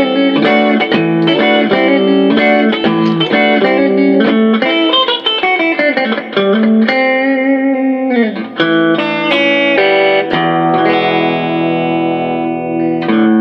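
Electric guitar played through a switched-on compressor pedal: a riff of picked notes held at an even level, with notes sliding down in pitch midway, then longer sustained notes near the end.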